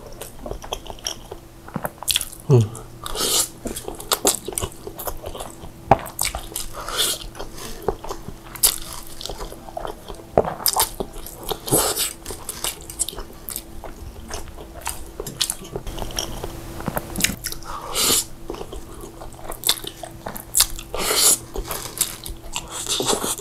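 A person eating saucy instant noodles close to a clip-on microphone: irregular wet slurps as forkfuls are sucked in, with chewing and mouth sounds between them.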